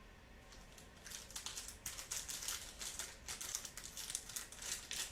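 Crinkling and rustling as trading cards and their plastic packaging are handled. Quick, crisp crackles start about a second in and go on, rising and falling.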